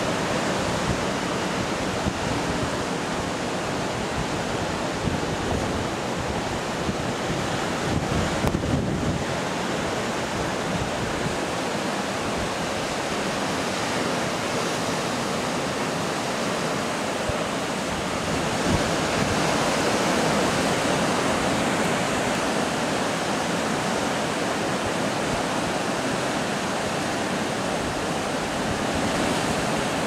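Caribbean Sea surf breaking on a rocky shore: a steady wash that swells a little about twenty seconds in, with wind on the microphone.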